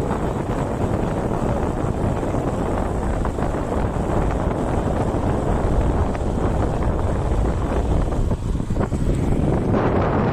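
Steady wind rush buffeting the microphone on a moving motorcycle, with the bike's running and road noise underneath.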